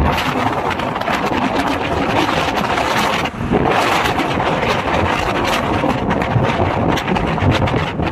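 Wind rushing over and buffeting the microphone of a moving road vehicle, with road and engine noise underneath; the rush dips briefly about three seconds in.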